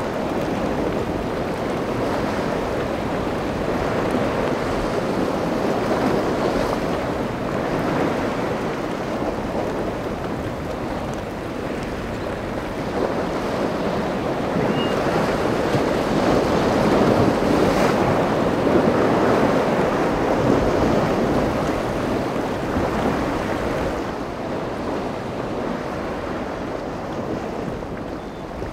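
Waves and rough water washing steadily, swelling and easing, with wind buffeting the microphone.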